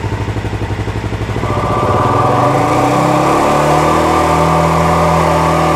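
Suzuki motorcycle engine idling just after start-up, then revved up about a second and a half in and held steady at about 5000 rpm for a charging-voltage test.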